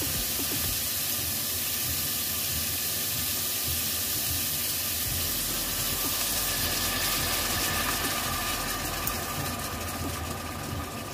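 Pork ribs with garlic and ginger sizzling and hissing in an aluminium saucepan on the stove, over a steady low hum, with light crackling near the end.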